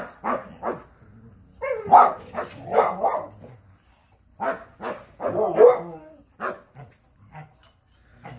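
American Staffordshire Terrier barking repeatedly, in irregular bouts of short, loud barks with brief pauses between them.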